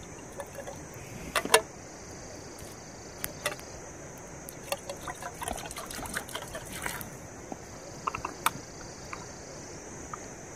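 Water poured from a plastic bottle into a metal pot, with irregular splashing and glugging, and plastic bottle clicks. A sharp knock about a second and a half in is the loudest sound.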